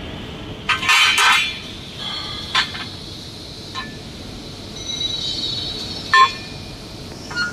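Metal clanking and clinking on a fiber laser tube cutting machine: a cluster of knocks about a second in, then four more single knocks spread out, several ringing briefly, over a steady machine hum.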